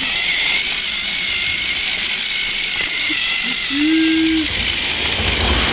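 Small electric motor of a battery-powered toy train whirring steadily as it runs along plastic track, heard from on board. A brief low hum sounds near the middle.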